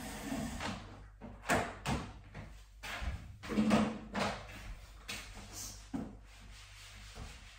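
Knocks, clatters and light scrapes from tidying and wiping down a wooden dining table and chairs, with about half a dozen sharp knocks spread through.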